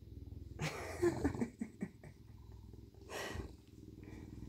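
Bobcat purring with a steady, rhythmic low rumble. There is a louder, noisier stretch about a second in and a short one around three seconds in.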